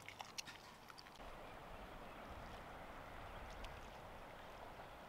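Faint, steady rush of a river flowing, with a few light clicks in the first second.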